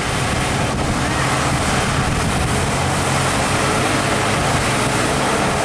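Heavy diesel truck engine running with a steady low drone, over dense road noise and wind on the microphone.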